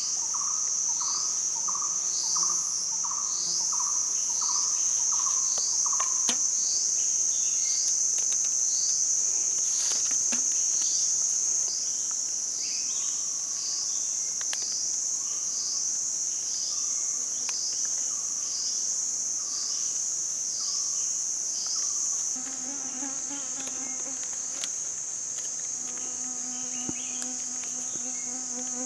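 Forest insects drone steadily at a high pitch, with a run of short falling chirps repeating over them. A pulsing call comes about twice a second for the first six seconds, and a low humming call starts near the end.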